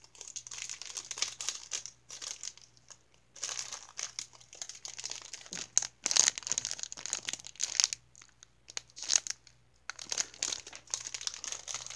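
Clear plastic packaging bag crinkling as hands work a squishy toy partly out of it, in irregular bursts with short pauses.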